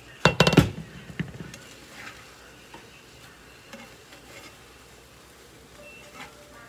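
A short burst of rattling clatter less than a second in as the glass pan lid is handled, then a spatula scraping and stirring rice in a frying pan, with a light sizzle.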